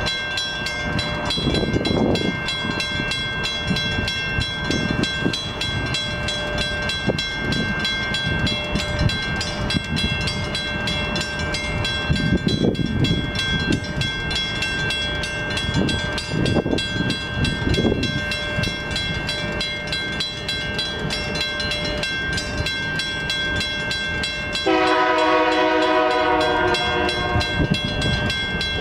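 A train rolling past with steady wheel-and-rail noise. Near the end its locomotive's multi-chime air horn sounds one blast of about a second and a half.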